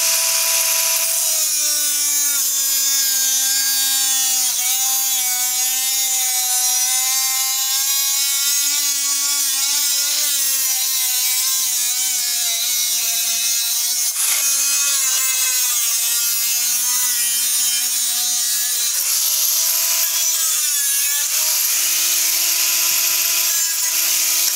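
Angle grinder with a cut-off wheel cutting through a sheet-steel floor-pan panel, a steady high whine whose pitch sags as the wheel bites into the metal. Near the end it spins up to a higher, steadier pitch as the wheel runs free.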